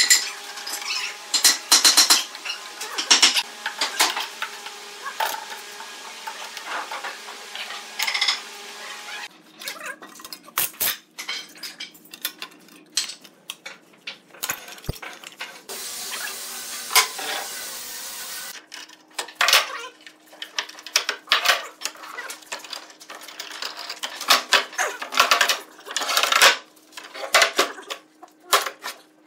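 Steel pipe clamps clinking and clanking as they are handled and tightened around glued pine boards, an irregular run of sharp metallic knocks and clicks with short pauses.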